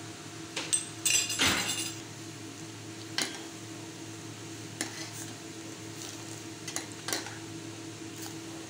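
A metal ladle clinking and scraping against a stainless steel saucepan as boiling milk tea is scooped up and poured back to beat it, dhaba style. There is a quick cluster of clatter about a second in, then single clinks every second or two.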